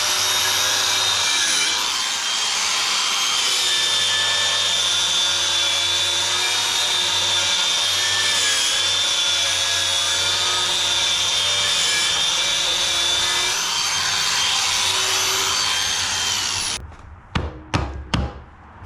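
Stick-welding arc crackling and sizzling steadily as a weld is laid on steel, with a low hum underneath; the arc stops abruptly near the end and a few sharp knocks follow.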